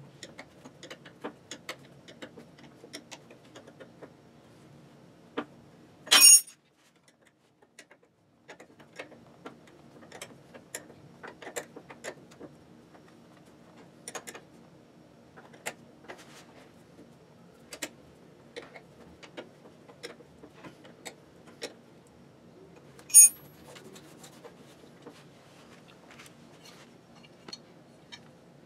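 Light, irregular metallic clicks and clinks of steel wrenches and small bolts being worked on a clutch motor's steel pedal lever, over a faint low hum. Two loud, sharp metal clanks stand out, one about six seconds in and one about two-thirds of the way through.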